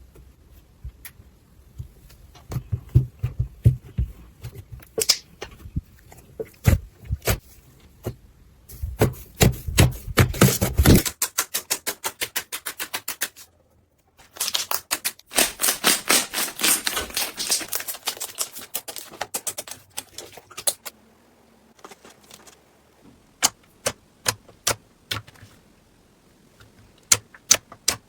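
Slime being squeezed and poked by hand, giving rapid runs of crisp clicking and crackling pops, with a brief pause about halfway through.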